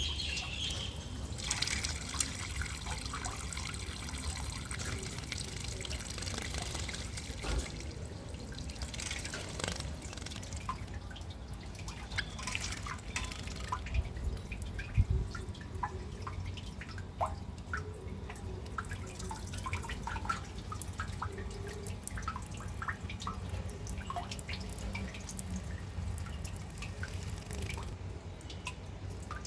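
Water splashing and dripping as small pet birds bathe. A denser hiss of water runs for about the first ten seconds, then it thins to scattered drips and small splashes.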